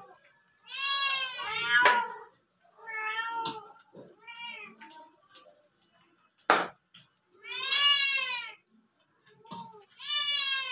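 A domestic cat meowing over and over, about six drawn-out meows that each rise and fall in pitch. Two sharp clicks or knocks come between them, the louder one just past the middle.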